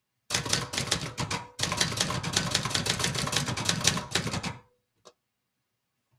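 Brother Charger 11 portable manual typewriter being typed on fast: a rapid clatter of keystrokes and typebar strikes for about a second, a brief break, then about three seconds more. One last single click comes about five seconds in.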